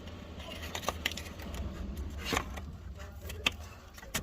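Scattered small plastic clicks and knocks as wiring plugs are pushed onto an electronic handbrake control module and latched in, over a low steady hum.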